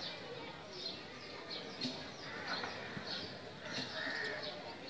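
Small birds chirping: short, high, falling chirps repeating a few times a second over a steady background hiss, with a longer whistled note about four seconds in.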